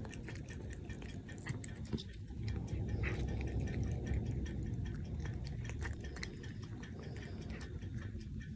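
A cat chewing and licking pieces of cooked chicken from a hand: a run of quick, irregular small wet clicks and smacks.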